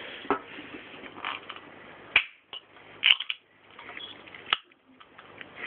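Ring-pull can of milk drink being handled and its tab cracked open: a few separate sharp clicks and snaps, the loudest about three seconds in.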